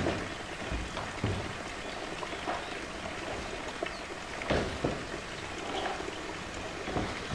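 A blue plastic drum knocking and scraping against wet concrete as a young polar bear presses and pushes it with its forepaws, a few separate knocks over a steady rushing background.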